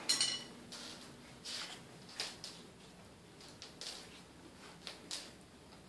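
Small dog sniffing and snorting in short, irregular breaths with its nose at a basket of toys.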